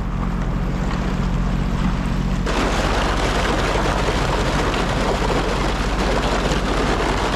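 Sea-Doo Explorer Pro jet ski engine running at low speed. About two and a half seconds in, a loud even hiss and crackle of water and thin lake ice breaking along the hull takes over.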